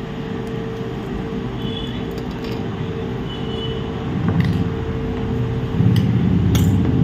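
Steady low hum with a faint steady tone under it, and a few light clicks and rustles of wires and tools being handled on a workbench, more handling noise in the second half.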